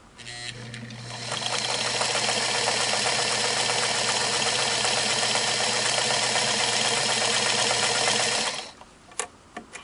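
Singer Model 237 sewing machine sewing a straight stitch under foot-pedal control. It speeds up over about the first second, runs steadily for about seven seconds, then stops, with a single click shortly after.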